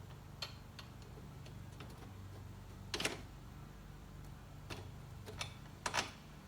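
Scattered light clicks and taps of a steel carriage bolt and spacer being fitted through the metal tubing of a table-saw stand, with a sharper knock about three seconds in and two more near the end, over a low steady hum.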